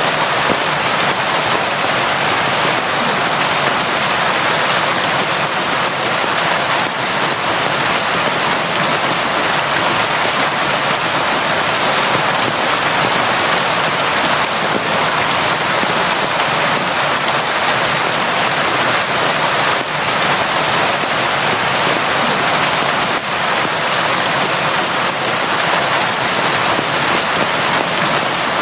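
Steady, heavy rain falling without a break, a dense even hiss of drops on a surface with faint individual patters.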